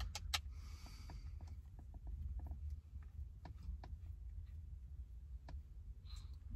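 Faint small clicks and ticks of a vape tank being handled and screwed onto a Geekvape Aegis Touch T200 mod's threaded connector, with a few sharper clicks near the start. A steady low hum runs underneath.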